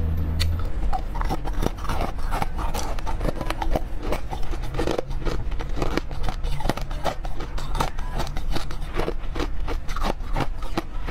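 Frozen yellow cubes crunched and chewed close to a microphone: a dense, irregular stream of sharp crunches and cracks. A low hum sits under it for the first half-second.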